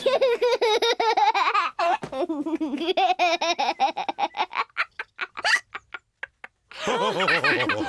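Cartoon pig characters laughing together in several voices. The laughter runs into quick short bursts that thin out about two thirds of the way in, then starts up again near the end.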